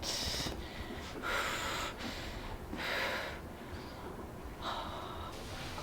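A person breathing heavily in and out, with about four audible, unvoiced breaths roughly a second and a half apart.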